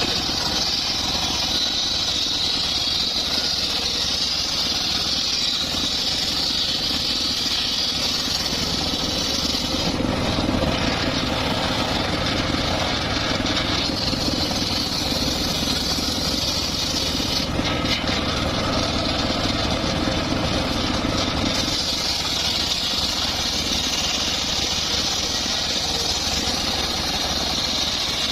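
Circular saw rig running while mahogany is sawn: a steady machine sound, deepening and heavier from about 10 to 21 seconds in.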